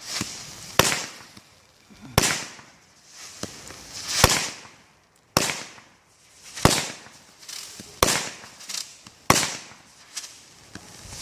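Consumer fireworks going off in a steady series: a sharp bang about once a second, each with a hissing rush around it.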